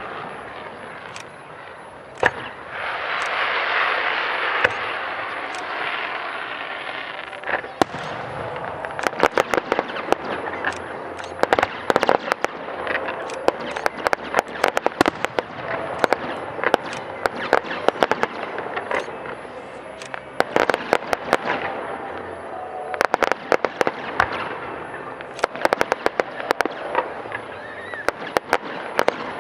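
Fireworks display: aerial shells bursting with repeated sharp bangs and crackling, sparse at first, then coming thick and fast from about a quarter of the way in.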